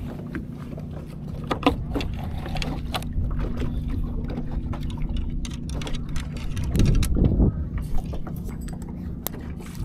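Light clicks and knocks of a spinning rod and reel being handled on a boat deck, over a steady low hum and wind noise, with a louder rush about seven seconds in.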